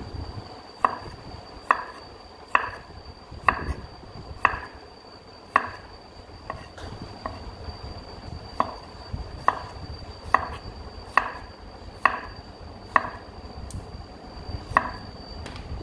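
A kitchen knife slicing garlic cloves thin on a wooden cutting board. Each stroke ends in a sharp knock of the blade on the board, about once a second.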